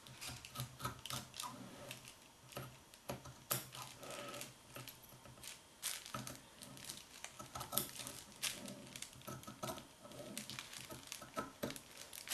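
Sharp scissors cutting through a folded shirt and the paper pattern pinned to it: a run of irregular snips.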